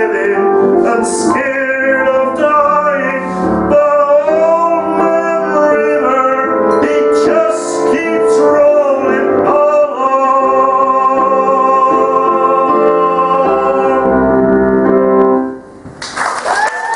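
A man singing the closing phrases of a song over piano accompaniment, ending on a long held note that starts about ten seconds in and stops suddenly; applause starts just before the end.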